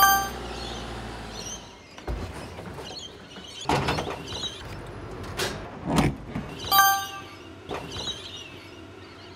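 Heavy thuds and knocks of a vending machine being handled out of a truck's cargo box, several in a row through the middle. A short bright chime sounds at the start and again about seven seconds in, over a van engine that fades out in the first second or two.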